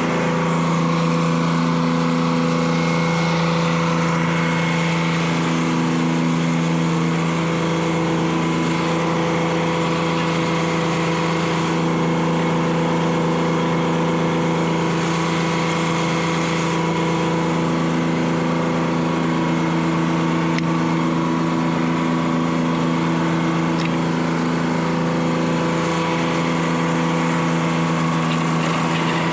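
Detroit Diesel 3-71 two-stroke diesel engine running steadily at speed, driving the sawmill. One tone in its sound comes and goes every few seconds.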